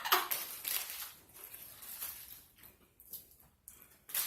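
Close-up chewing and smacking of someone eating a Double Whopper burger, coming in irregular soft bursts and clicks.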